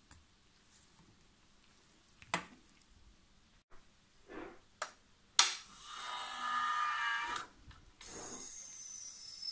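A Proofmaster S watch water-resistance tester: its lid clicks shut about five seconds in, the machine whirrs briefly, and then air hisses steadily with a thin whistle falling in pitch as the test chamber is pressurised.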